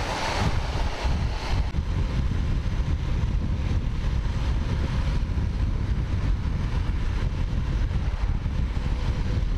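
Riding motorcycle: wind buffeting the microphone in a steady low rumble, with the bike's engine running underneath.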